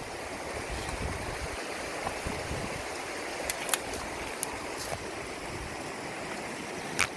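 Steady rush of flowing stream water, with a few sharp clicks over it near the middle and end.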